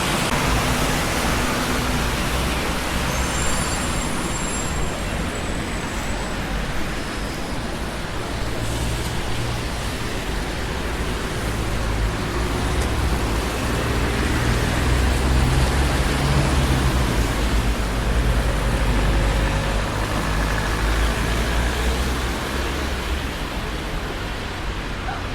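Steady traffic noise of a busy city street: cars and heavier vehicles passing continuously, tyres and engines blending into one even noise, with a deeper engine rumble swelling about halfway through.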